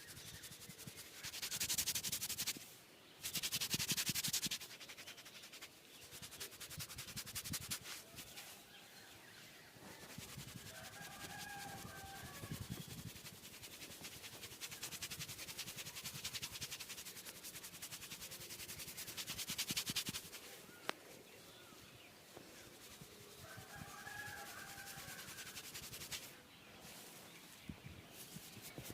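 Hands rubbing and massaging over skin and hair, a soft swishing friction noise, loudest in two bursts a second or two in and again about two-thirds of the way through.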